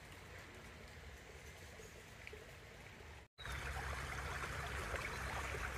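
Creek water running and trickling. About three seconds in the sound cuts out for a moment and comes back louder, with a low rumble underneath.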